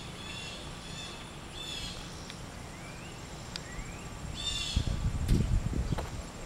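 Songbirds chirping in quick repeated high notes, with two short rising whistled calls in the middle. Near the end comes a burst of low thuds and rumble, the loudest sound.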